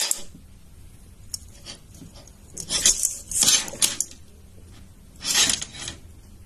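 Metal binder clips clinking and rattling as a rabbit tugs and gnaws at them, in short bouts: a couple of single clicks, then a cluster about halfway and another near the end.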